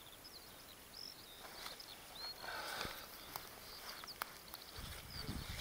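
Faint, scattered high chirps of small birds calling over the field, with light rustling, a couple of sharp clicks, and a low rumble near the end.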